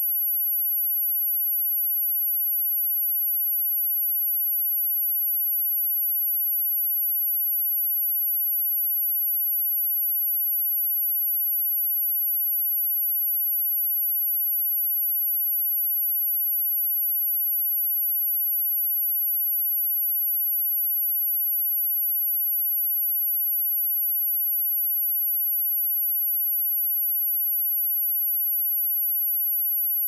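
A single pure sine tone at 11,708 Hz, a very high steady whistle held at an even level with no change.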